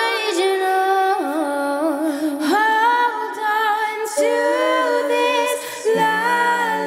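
Four female voices singing a cappella in close harmony: several parts held together on long notes that step up and down, with a lower part entering about six seconds in.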